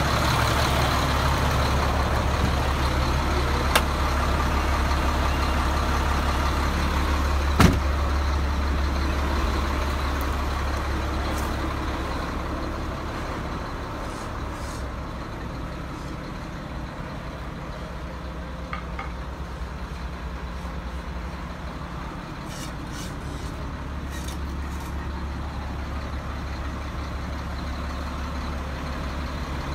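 A 2005 Freightliner rollback tow truck's diesel engine idling steadily, growing fainter through the middle and a little louder again near the end. A light click and then a single sharper knock come in the first several seconds.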